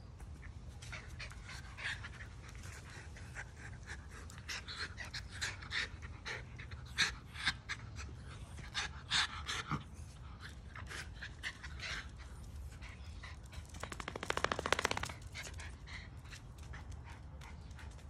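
Miniature schnauzers play-wrestling, a puppy and an adult, with quick panting breaths and many short sharp sounds. About fourteen seconds in there is a louder, rapid buzzing rasp lasting about a second.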